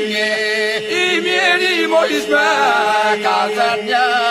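Albanian folk song sung by a group of voices: melodic lines wavering and ornamented above a steady, unbroken drone held underneath, in the style of southern Albanian iso-polyphonic singing.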